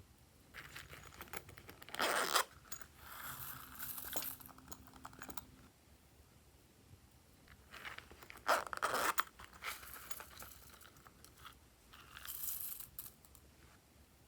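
Glossy slime being pressed and stretched by hand, in two spells of sound, each with a louder burst: about two seconds in and about eight and a half seconds in.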